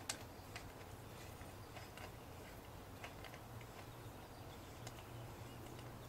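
Faint, scattered metallic clicks of pin pliers turning the finely threaded upper bushing into a suspension fork's stanchion, with a sharper click right at the start, over a low steady hum.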